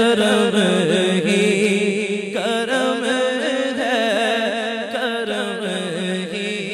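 Naat singing: a man's voice draws out a long, wavering melodic line over a steady low hum, fading away near the end.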